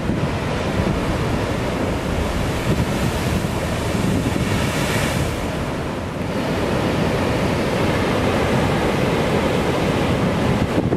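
Heavy surf breaking and washing over a rocky shore, a steady loud wash with a brighter hiss of a breaking wave about four to six seconds in. Wind rumbles on the microphone.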